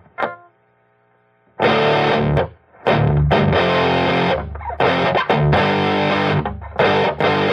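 Electric guitar played through the EGO TM2 OD100 on its lead setting, with heavy distortion. A short chord rings out and fades, then loud, driven riffing follows, with brief stops between phrases.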